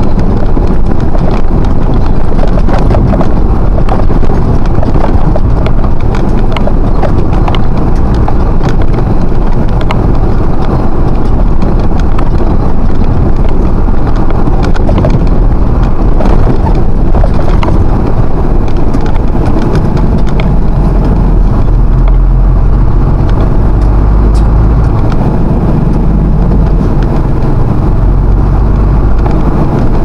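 Vehicle driving, heard from inside the cab: the engine and road noise make a loud, steady low rumble with a rattling clatter, its pitch shifting with speed.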